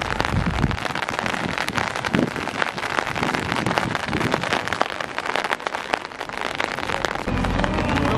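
Heavy rain, a dense crackle of drops striking close to the microphone. About seven seconds in, it changes to a steadier hiss over a low rumble.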